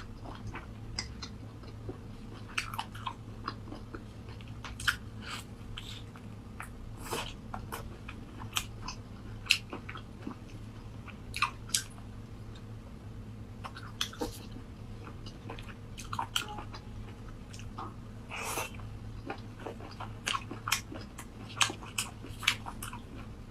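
Close-miked eating: irregular crunchy bites and wet chewing sounds, a few sharp crackles louder than the rest, over a steady low electrical hum.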